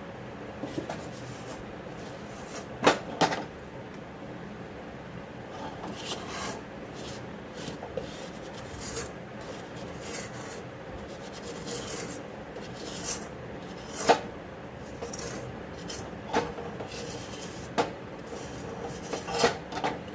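A metal spoon or spatula scraping and knocking against a cooking pan or plate, irregularly, with a few sharper knocks standing out.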